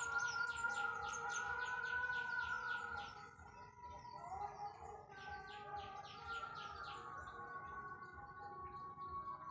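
Bird chirping in quick runs of short high calls, about six a second, over steady held tones. One run stops about three seconds in, and another follows for a couple of seconds from about the middle.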